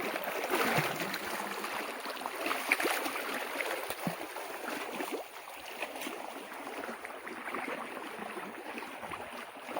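Shallow water sloshing and gurgling with small splashes and trickles, busier in the first half and calmer after about five seconds.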